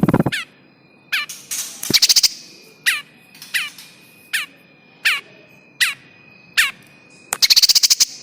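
Prinia (prenjak) distress calls, the 'trapped prinia' call used as a bird-trapping lure: short notes sliding downward, repeated about every second, broken twice by fast harsh rattling bursts, over a faint steady high whine.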